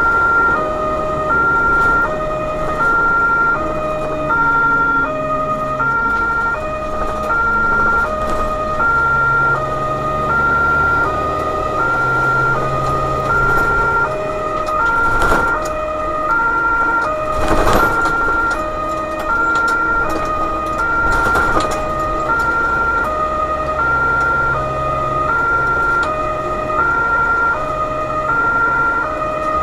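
Two-tone emergency siren on a BVG overhead-line tower wagon, switching evenly between a high and a low note about every two-thirds of a second, heard from inside the cab. The truck's engine and road noise run under it, with a few brief knocks partway through.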